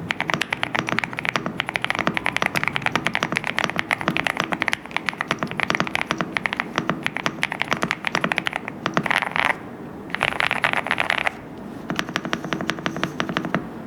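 Fast typing on a mechanical keyboard fitted with PBT keycaps: a rapid, dense run of key clacks, broken by two short pauses near the end.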